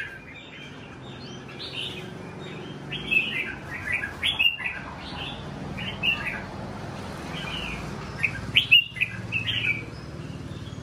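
Caged red-whiskered bulbuls singing: short, bright chirpy phrases in quick bursts, loudest about three seconds in and again near nine seconds.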